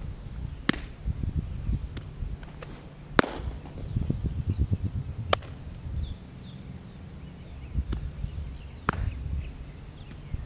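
Baseball pitches and return throws smacking into leather gloves: several sharp pops, the loudest about three seconds in. A low, gusting wind rumble sits underneath, with faint bird chirps.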